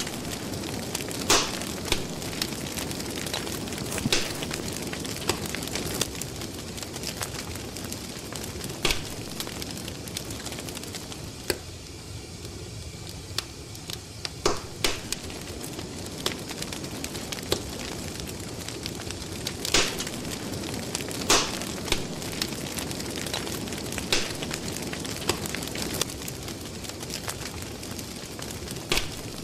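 Crackling fire: a steady hiss with irregular sharp pops every second or two.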